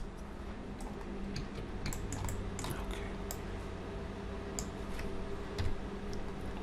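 A dozen or so scattered, sharp clicks from a computer keyboard and mouse, over a steady low electrical hum.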